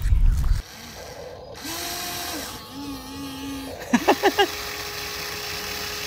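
Small electric motor whining at a steady pitch that steps up and down. A loud low rumble cuts off abruptly just after the start, and four quick loud squeaks come about four seconds in.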